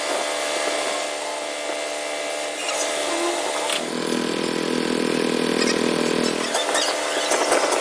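Workshop machinery running steadily, a motor hum with even tones, a deeper band joining for a couple of seconds midway, and a few metallic clicks near the end.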